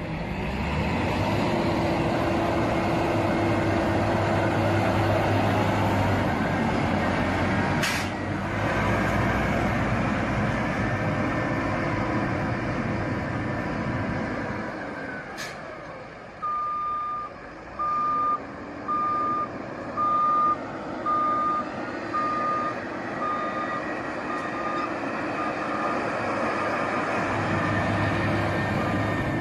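Heavy road-construction machinery engines running, then a reversing alarm beeping about once a second for several seconds, fading toward the end, as engine noise builds up again.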